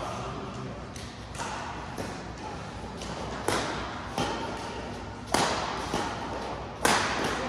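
Badminton rally: rackets striking the shuttlecock in sharp, separate hits about every half second to second and a half, the two loudest near the end, each followed by a short echo in the hall.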